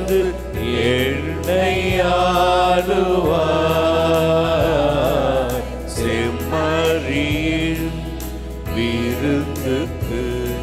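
A church hymn sung with instrumental accompaniment, in phrases separated by short breaks.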